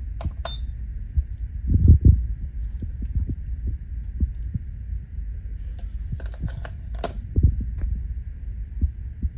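Chain links clinking and knocking as saw chains are handled and set on a digital scale, over a low rumble of handling noise, with a short electronic beep about half a second in.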